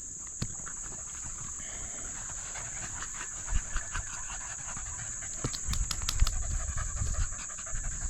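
A dog panting hard, with a steady high-pitched drone underneath and a few low thumps, the heaviest coming from about five and a half to seven seconds in.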